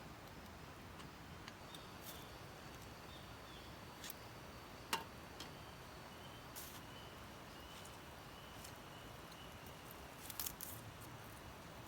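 Quiet night ambience: a low hiss with a faint, thin, high tone wavering through most of it. Scattered small clicks and taps break in, the sharpest about five seconds in and a few close together near the end.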